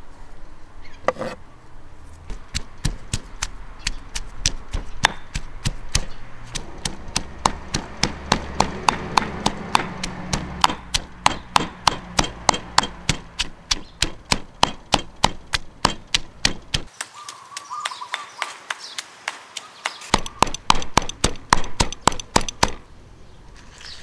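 Rapid, even chopping with a knife on a cutting board, about three sharp strikes a second. It breaks off for a few seconds in the second half, then resumes.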